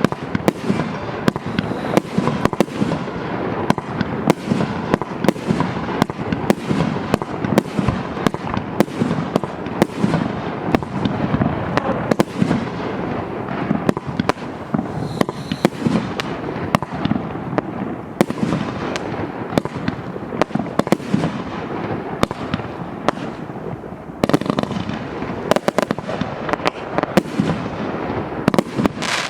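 A 200-shot, 1.2-inch firework cake ('Spectrum' MC12200) firing continuously. Sharp shots come a few per second over constant noise from the bursting shells.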